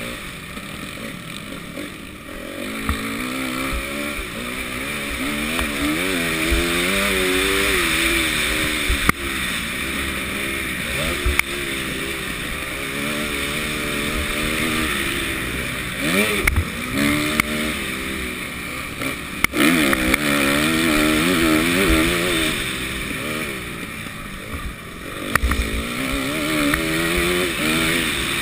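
Motocross bike engine heard from the rider's helmet camera, its revs climbing and dropping over and over through the race, with scattered sharp thumps over rough ground.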